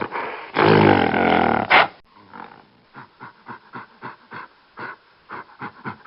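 An animal's loud, low, drawn-out call in the first two seconds, followed by a run of short, quieter calls about three a second.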